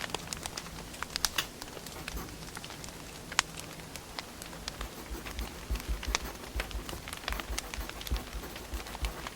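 Wood fire burning, with irregular sharp crackles and pops over a steady hiss and a low rumble of flames.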